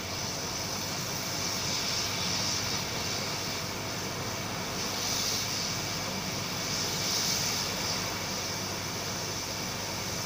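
SMD hot-air rework station blowing, a steady rushing hiss that swells a few times. It is heating the solder of a phone's defective charging jack to desolder it.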